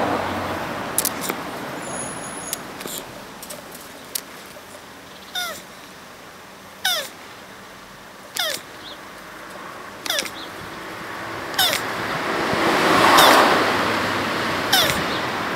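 Male Hermann's tortoise squeaking as it mounts and rubs against a stone: short, high calls that fall in pitch, about one every second and a half. A louder rushing noise swells near the end.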